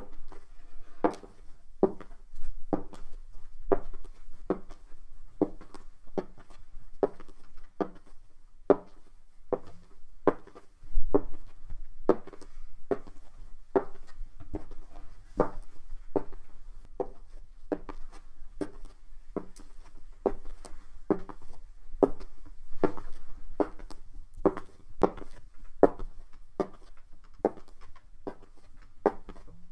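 Footsteps of hard heels walking steadily on a hard floor, about two sharp clicking steps a second.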